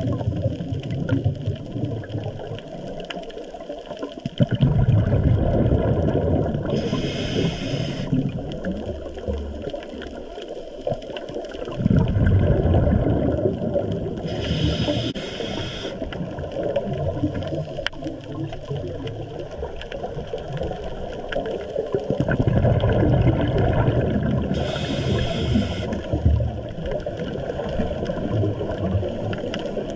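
Scuba regulator breathing heard underwater: a hissing inhale through the regulator about every eight seconds, three times, with a low gurgling rush of exhaled bubbles between them.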